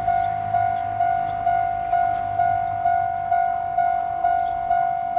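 Japanese railway level-crossing warning bell ringing: a steady electronic ding repeated about twice a second, each stroke fading before the next. It is the signal that a train is approaching the crossing.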